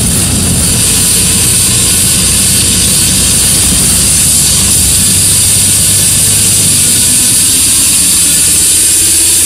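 Car driving: steady engine and road noise, the engine note rising slightly in the second half.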